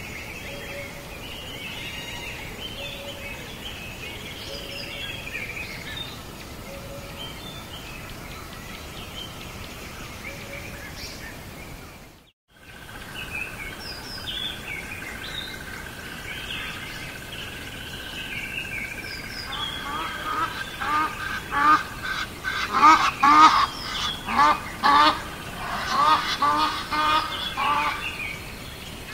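Birds calling: scattered chirps at first, then, from about two-thirds of the way through, a run of loud, short, repeated calls about two a second. The sound drops out briefly near the middle.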